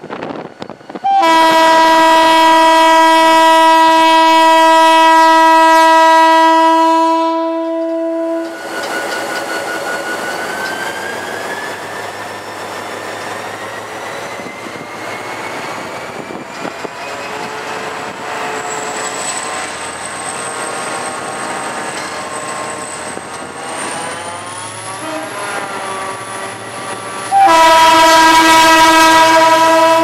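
A GT22 diesel locomotive's horn sounds two long blasts: one of about seven seconds starting a second in, and another starting near the end. Between the blasts the locomotive's diesel engine is heard running, with a whine that rises slowly in pitch.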